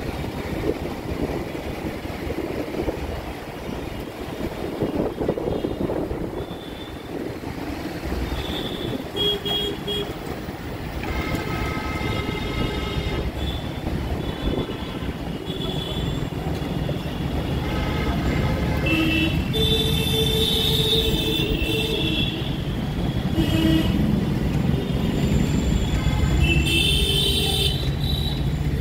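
City traffic heard from a moving motorcycle: wind rush on the microphone and engine rumble, with several vehicle horns honking repeatedly from about ten seconds in. The rumble grows louder toward the end as the traffic thickens.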